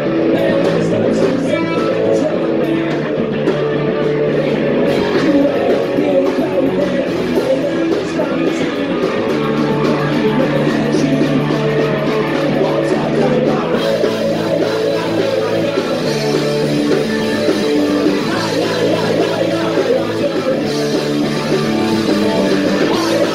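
Punk rock band playing live, with loud electric guitar to the fore and singing.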